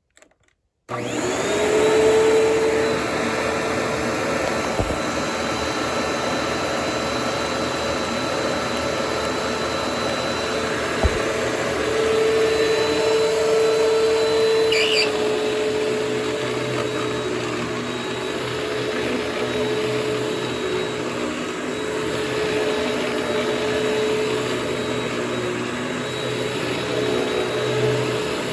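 Hoover Platinum Collection UH70010 WindTunnel bagless upright vacuum switched on about a second in: its motor spins up with a rising whine, then runs steadily.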